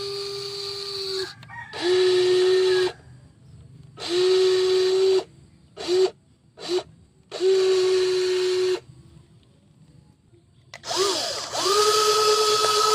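Small electric motors and gearboxes of a WL16800 RC toy excavator whining in repeated bursts as its functions are driven, each burst holding a steady pitch. There are about six bursts of a second or so with gaps between, two of them very short in the middle, and a longer one starting near the end.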